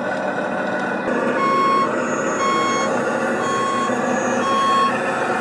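Reversing beeper of a radio-controlled model truck or construction machine's sound module, giving a steady high beep about once a second, four times, starting about a second and a half in, over steady running noise.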